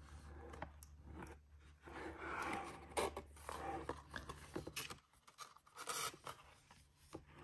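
Hands turning and handling the stiff cardboard pages of a children's board book: faint scraping and rubbing of the pages, with a few soft clicks.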